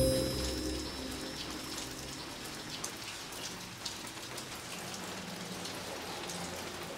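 Steady rain falling, with scattered separate drops ticking through it. The last notes of a piece of music fade out in the first second or so.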